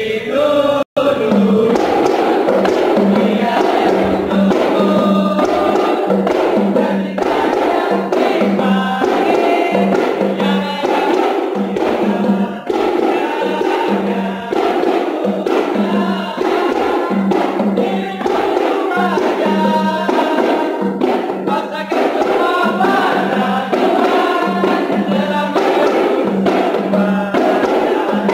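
A kompang troupe beating hand-held frame drums in a steady rhythm, about two strokes a second, while a group of men chant and sing together in unison.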